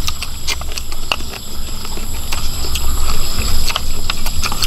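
People eating with their mouths close to the microphone: chewing and lip-smacking as a string of small, irregular clicks and smacks, over a steady low rumble.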